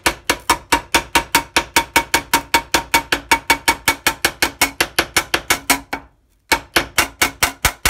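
Peening hammer rapidly striking the edge of a steel scythe blade laid over a bench vise, about six even, ringing metallic blows a second, as the edge is cold-hammered thin (dengeln). The blows pause for about half a second near the end, then resume.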